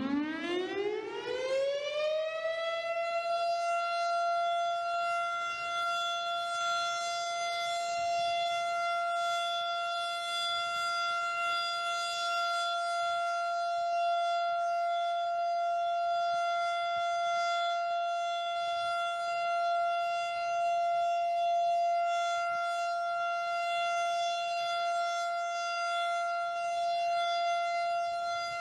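Noontime city siren sounding the midday hour: its pitch climbs over the first two to three seconds, then holds one steady tone.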